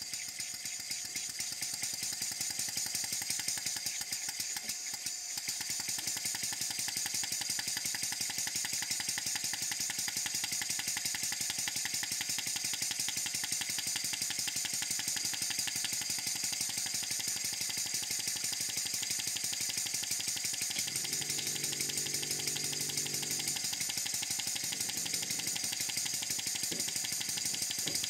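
Stuart Models No. 8 single-cylinder horizontal model steam engine running fast on the bench, a rapid, even chuffing of exhaust beats that steps up a little a few seconds in as the supply valve is opened. Its valve timing is a little advanced, admitting steam or air early at both ends of the stroke.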